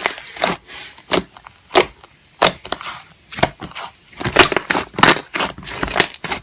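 Slime being squished and pressed by hand, giving sharp crackling pops, one or two a second at first and then a dense run of them in the last two seconds.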